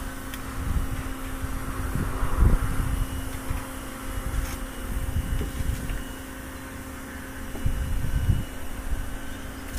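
A steady low machine hum with wind buffeting the microphone in irregular gusts, the strongest about a third of the way in and again near the end.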